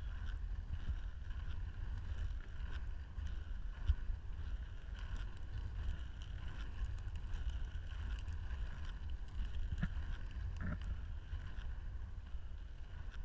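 Inline skate wheels rolling steadily along a tarmac path, with wind buffeting the microphone and a couple of short knocks near the end.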